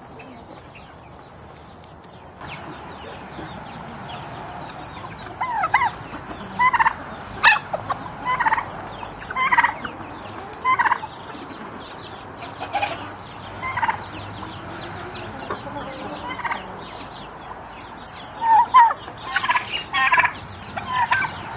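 A backyard flock of chickens with a turkey, calling. Short, loud calls come about once a second from roughly five seconds in, and crowd together near the end.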